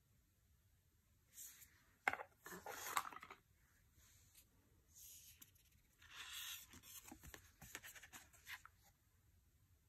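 Tarot cards being handled and flipped: soft paper-on-paper swishes and sliding with quick sharp snaps, in two short spells, faint overall.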